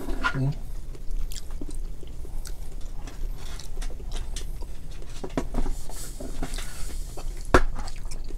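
Eating sounds: chewing, with scattered clicks and cracks as boiled lobster and crab shells are pulled apart, and one sharper crack near the end.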